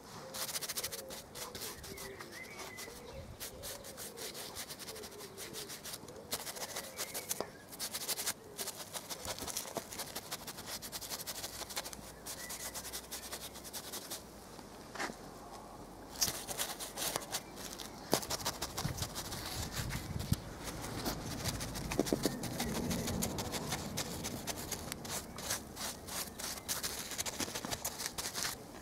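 Pure-bristle paintbrush scrubbing liquid rust converter into a rusty wrought-iron gate rail: a scratchy rubbing of bristles on metal, in uneven strokes.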